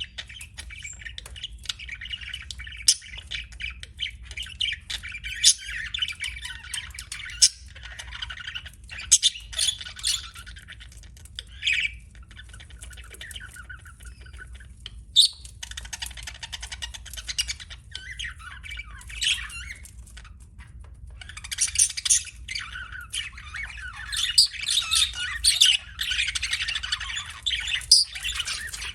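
Budgerigars chirping and chattering in fast, irregular runs of high notes and squawks, thinner for a stretch in the middle and busier again in the last third. A steady low hum runs underneath.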